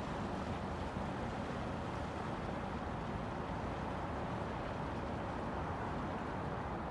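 Steady low rumble of a small passenger ferry's engine running on the water, under an even hiss.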